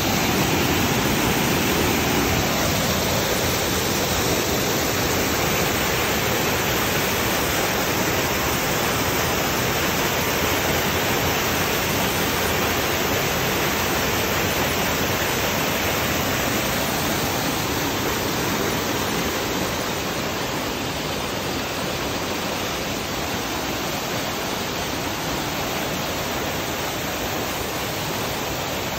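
Small waterfall pouring over rocks into a shallow pool: a steady rush of falling water, slightly softer after about twenty seconds.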